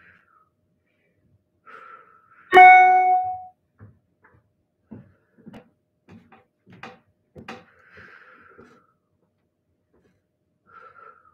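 A person breathing hard while holding a plank, with faint exhales. About two and a half seconds in comes one loud ringing tone that fades over about a second, followed by a scatter of light clicks and taps.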